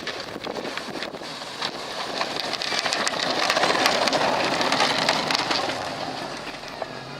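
Chevy pickup truck's snowplow pushing and scraping snow: a steady hiss of moving snow with scattered crunching clicks, growing louder through the middle.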